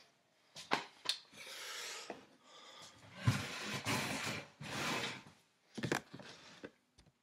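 Handling noise close to the microphone: a few sharp clicks and knocks mixed with stretches of rubbing and rustling, as a person moves about and handles things at arm's length.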